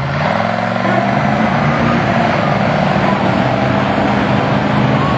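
Monster truck engine revving up in the first moments, then running at high revs.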